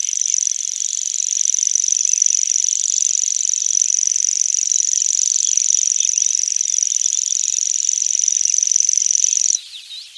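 Grasshopper buzzing: one continuous, high-pitched, steady buzz that cuts off suddenly near the end. Faint short chirps sound underneath it.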